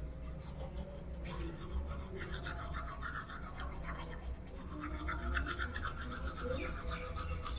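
Manual toothbrush scrubbing teeth in quick, rhythmic back-and-forth strokes, starting about a second in, over a low steady hum.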